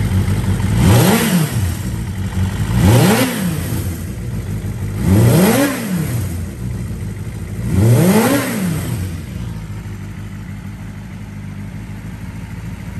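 1992 Suzuki Bandit 400V's inline-four engine idling through a Yoshimura aftermarket muffler, with the throttle blipped four times, every two to three seconds. Each rev rises quickly and drops straight back to idle.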